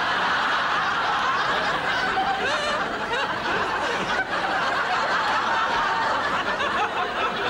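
Studio audience laughing in one long, steady wave that eases slightly near the end.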